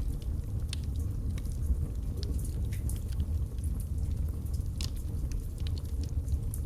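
Wood logs burning in a fireplace, crackling with scattered, irregular pops over a steady low rumble of the flames.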